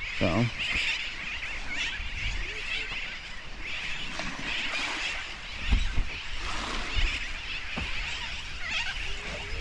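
A continuous chorus of many birds chattering and calling. Wind rumbles on the microphone, with a couple of dull thumps about halfway through.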